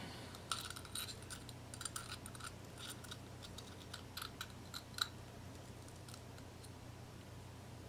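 Broken porcelain pieces clicking and grating lightly against each other as they are fitted together dry: a string of faint small clicks that stops about five seconds in, over a low steady hum.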